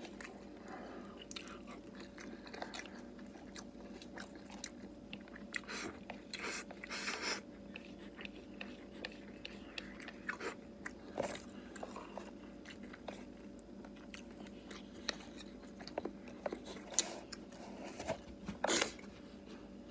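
Close-up eating sounds: a person chewing rice and side dishes with the bowl held at the mouth, with irregular sharp clicks of chopsticks against the bowl. A faint steady hum runs underneath.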